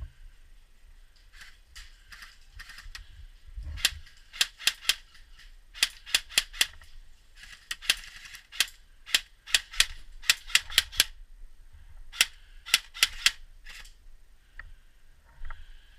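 Airsoft guns firing: groups of sharp pops several a second, in short strings, from about four seconds in until about thirteen seconds in.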